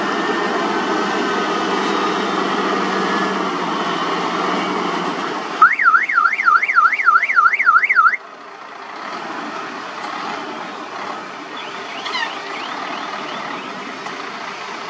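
Diesel dump truck engine running as the truck backs up. About five and a half seconds in, a loud electronic alarm warbles up and down about four times a second for roughly two and a half seconds, then stops abruptly; the engine then continues more quietly.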